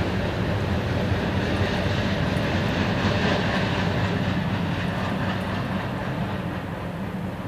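Freight train cars rolling past on the track, a steady rumble that slowly fades toward the end.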